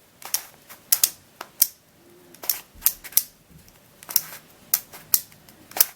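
Plastic twisty puzzle, a Lanlan Skewb Diamond, being turned by hand: a dozen or more sharp clicks at an uneven pace, some in quick pairs, as its layers snap through the clicking mechanism.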